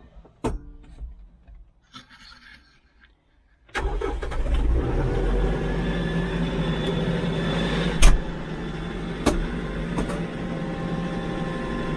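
A click, then a TYM T574 compact tractor's diesel engine starts up abruptly about four seconds in, a cold start on glow plugs, and settles into a steady run. Two sharp knocks sound a few seconds after it catches.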